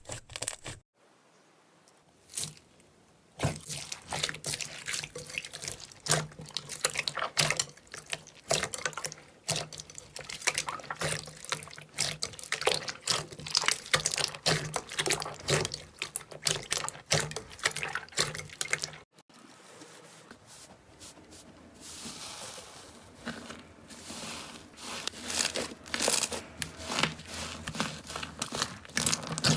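Slime being squeezed, poked and stretched by hand: dense runs of wet clicks, pops and squelches. A near-silent pause of about two seconds comes near the start, and the texture changes about two-thirds through as one clip gives way to another.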